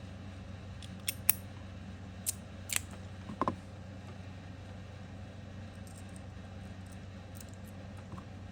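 Magnetic stainless steel fidget slider being handled: about five sharp metallic clicks in the first three and a half seconds as its steel parts and magnets snap together. After that there is only a steady low hum.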